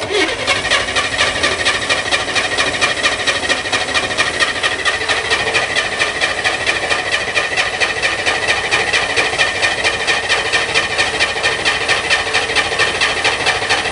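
Corvair Spyder's air-cooled flat-six turning over on the starter for about fourteen seconds, an even rapid pulsing that never catches and stops abruptly at the end. It is a cold no-start, which the owner then puts down to flooding with the choke closed.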